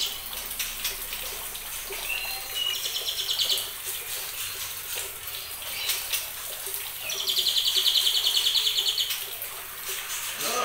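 Juvenile white-rumped shamas (murai batu) calling: short high rapid rattling trills, with a longer, louder trill about seven seconds in that lasts about two seconds.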